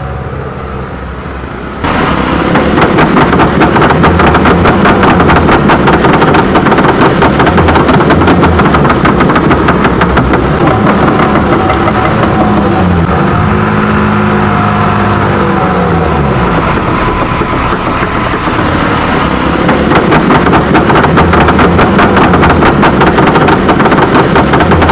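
Fishing boat's engine running loud and fast, stepping up in loudness about two seconds in, its pitch rising and falling again near the middle.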